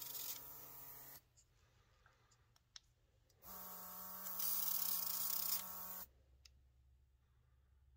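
Autolock cordless airbrush's built-in compressor running with a hiss of air and paint. It cuts off about a second in, then runs again for about two and a half seconds in the middle, with a few faint clicks between. The paint is not spraying well: it is too thick and needs more reducer.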